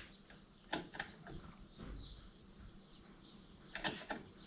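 A few faint clicks and light knocks of metal U-joint parts being handled, the loudest a little under a second in and another pair near the end, with a short high chirp about two seconds in.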